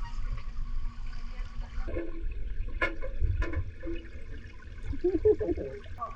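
Swimming-pool water sloshing and splashing, with a low rumble and scattered splashes.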